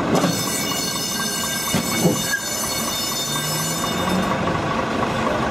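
Tram giving a high, steady metallic squeal made of many ringing tones, grinding against the side of a car wedged against it. The squeal cuts off about four seconds in, with a lower hum under its last second.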